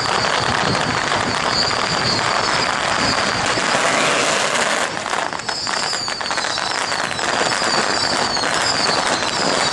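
Loud, steady din of a street temple procession: a dense crackling noise, denser about five seconds in, under a short high wavering tone that keeps repeating.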